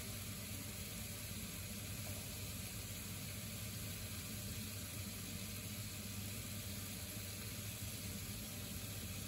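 Chicken pieces frying in a nonstick pan: a steady sizzle with a low, even hum underneath.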